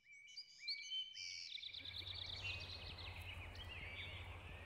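Several birds chirping and calling in quick whistled notes, some rising and some falling, over a low steady hum that comes in after about a second.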